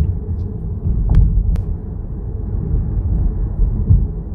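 Low road and tyre rumble inside the cabin of a BYD Seal electric saloon on the move, with no engine note, and two brief ticks just over a second in.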